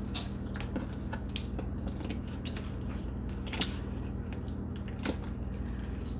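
Small wet clicks and squelches of fingers pulling the guts out of a slit-open eel on a wooden cutting board, with two sharper clicks, one a little past halfway and one near the end. A steady low hum runs underneath.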